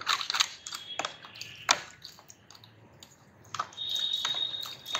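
A water-damaged Lenovo laptop motherboard being scrubbed and swished by hand in a tub of soapy water, with short splashes, rubs and knocks as the liquid-damage residue is washed off. Near the end a steady high tone comes in and holds.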